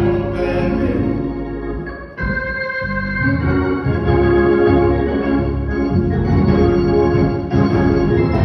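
Organ playing slow, sustained chords that change every second or two. The sound briefly thins and drops a little just after two seconds in, then a fuller chord comes in.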